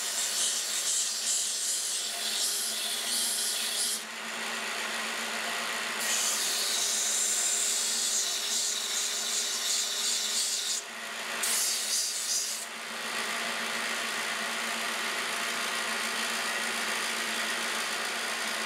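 Benchtop power sander's motor running steadily while a pine whirligig wing is pressed against the abrasive in three stretches of rasping hiss: about four seconds, then about five seconds, then a short touch about a second later. Near the end only the motor runs.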